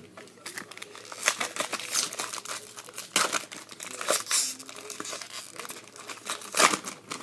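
Foil wrapper of a baseball card pack crinkling and tearing as it is ripped open and handled: a run of rustles and rips, loudest near the end.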